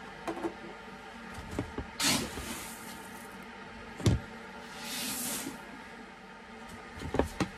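Malted barley grain rustling and pouring as it is scooped with a plastic scoop, with a sharp knock about four seconds in.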